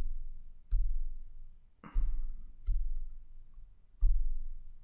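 Isolated keystrokes on a computer keyboard: about five separate sharp key clicks, spaced roughly a second apart.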